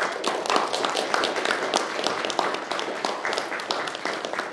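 Congregation applauding: many people clapping at once in a dense, steady patter.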